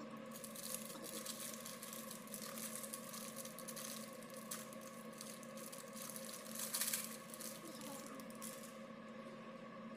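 Gloved hands tearing and crinkling the wrapping of a boxed block of cheese, with a louder rip about two-thirds of the way through, over a steady low appliance hum.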